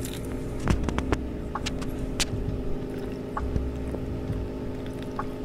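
Liquid splashing and dripping in a bucket while a motorcycle brake pad is washed by hand, with scattered small clicks and knocks of the pad and metal parts, over a steady low hum.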